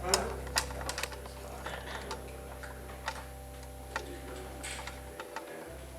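Irregular light clicks and knocks, a dozen or so, scattered over a steady low hum; a held musical note cuts off right at the start.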